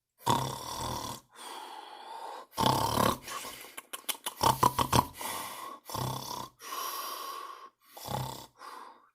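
Exaggerated human snoring: five rasping snores on the in-breath, each about half a second long, with quieter breathy out-breaths between them.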